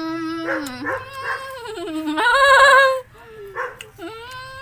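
A woman's voice drawn out in long, howl-like wailing notes that slide up and down in pitch, loudest in a wavering high note about two seconds in that breaks off suddenly.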